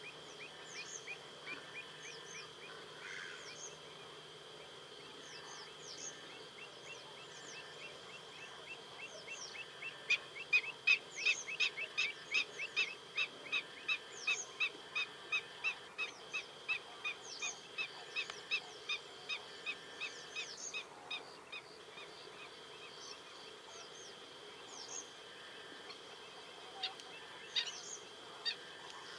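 Marsh birds calling: scattered short high calls, and about a third of the way in a rapid run of sharp repeated calls, about two to three a second, lasting around ten seconds. A steady thin high-pitched tone sounds underneath.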